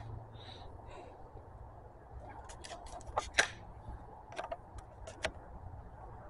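A plastic doll being handled and lifted off a wooden stump: a scattered run of faint, sharp clicks and rattles, from about two seconds in until past five seconds.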